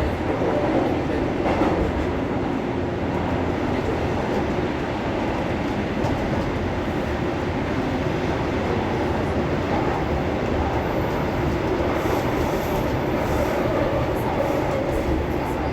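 São Paulo Metro Frota J subway train running, heard from inside the car: a steady rumble of wheels on rail and running gear.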